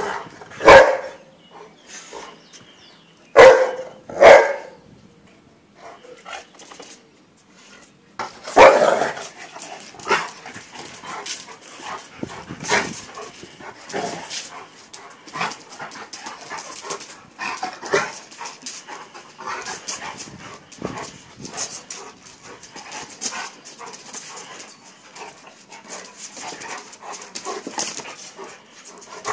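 A Dogo Argentino and a Leonberger play-fighting with dog vocalisations: a few loud barks about a second in, twice around four seconds and once near nine seconds, then many shorter, quieter calls.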